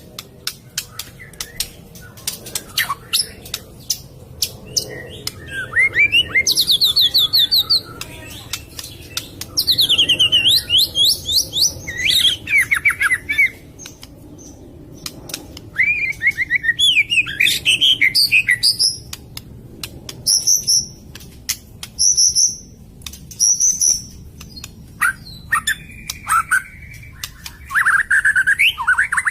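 White-rumped shama (murai batu) singing a varied song: phrases of fast trills and sliding whistled notes come every second or two between short pauses, with many sharp clicks scattered through.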